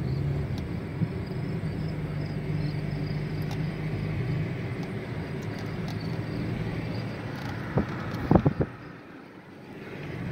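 Car engine and road noise heard from inside a moving car: a steady low drone. About eight seconds in come a few sharp knocks, the loudest sounds, after which the drone briefly drops away.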